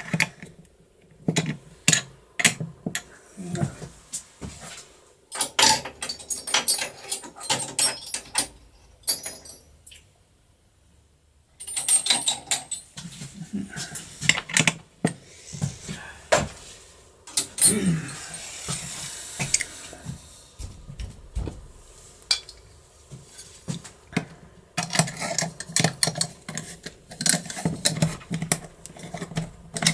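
Metal keys clinking and rattling in a run of sharp clicks, with a pause of about a second and a half near the middle. Near the end, a bit key clicks and scrapes as it is tried in the keyhole of a mortise lock.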